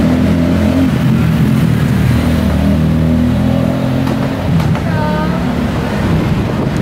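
Motor scooters and cars running in city street traffic, with a steady engine hum that is strongest for the first four seconds and then eases. A brief call from a voice comes about five seconds in.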